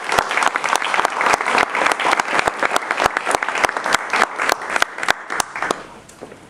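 Audience applauding, with many sharp individual claps, dying away near the end.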